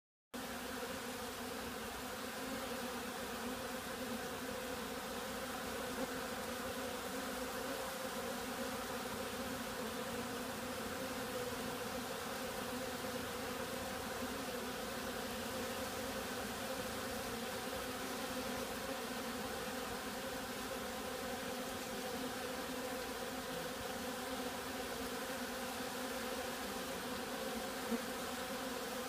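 Steady buzzing hum of a crowd of honeybees flying about a wooden hive entrance, busy enough that the beekeeper wonders whether it is robbing.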